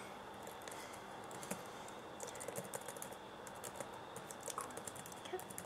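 Soft, quick typing taps: a run of light clicks, fingers entering text on a device, starting about a second and a half in.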